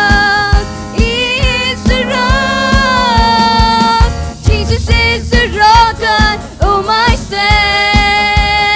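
Gospel worship music: singers holding and sliding long wordless notes over a band with a steady drum beat.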